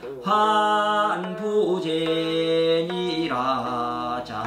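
A voice chanting a line of classical Chinese text in the Korean seongdok style, drawing each syllable out into long held, sung notes and closing the line on "患不除니라" near the end.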